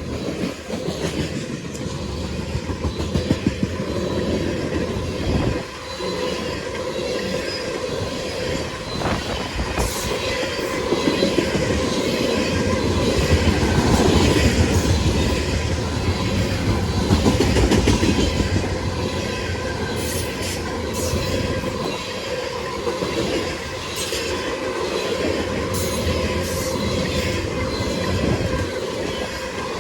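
Freight train CSX B741 rolling past at steady speed, a continuous rumble with its wheels clacking over the rail joints and some brief high wheel squeal in the second half.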